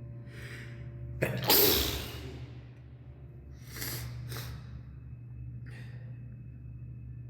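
A person sneezes once, sharply, about a second and a half in, after a quick inhale, with a short echo from the stairwell. Two quick breaths follow near the middle, over a steady low hum.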